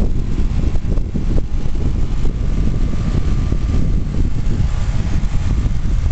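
Lennox 13ACX 2-ton central air conditioner's outdoor unit running full out, a steady low rush from its condenser fan and machinery.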